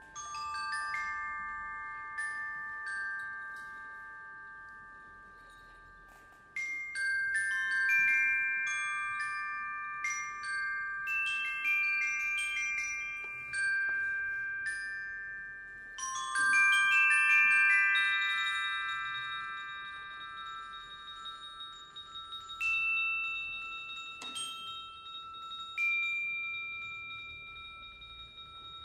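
High, bell-like notes struck on tuned mallet percussion, ringing on long after each strike and overlapping into chords. A slow, sparse line of a few notes thickens a few seconds in into a busier run of struck notes, loudest around the middle. It then thins back to a few long-ringing tones near the end.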